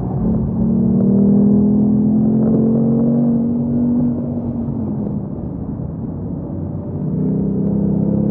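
Ford Mustang Mach 1's 5.0-litre V8, heard from inside the cabin pulling in third gear. Its pitch rises slowly for about four seconds, then eases off as the car slows, and the engine picks up again near the end.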